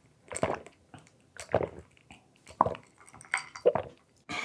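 A person gulping down a glass of cola, with loud swallows about a second apart.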